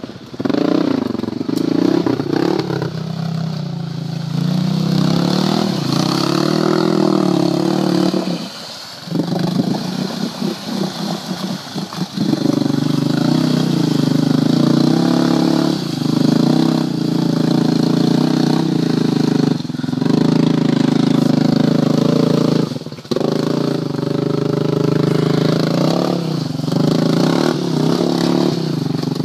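Honda Rancher 420 ATV's single-cylinder four-stroke engine revving hard under load while the quad is bogged deep in mud. The throttle is backed off briefly every few seconds, with a longer, uneven lull about eight to twelve seconds in.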